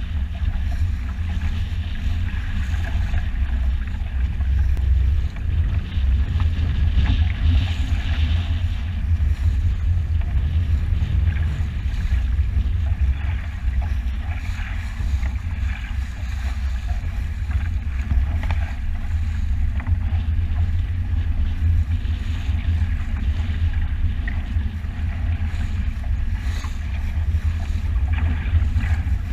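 Wind buffeting the microphone in a steady low rumble, over the uneven rush and splash of water along a moving sailboat's hull.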